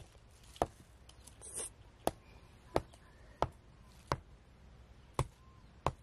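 A blade chopping with steady sharp strokes, about eight strikes roughly two-thirds of a second apart with a couple of short pauses.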